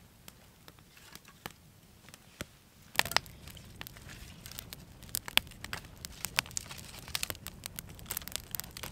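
Freshly lit campfire of birch bark and small sticks crackling and popping. There are a few scattered snaps at first, then dense crackling from about three seconds in.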